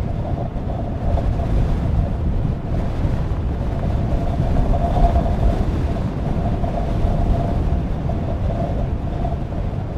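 Strong wind buffeting the camera microphone in a steady low rumble, with a faint steady tone above it.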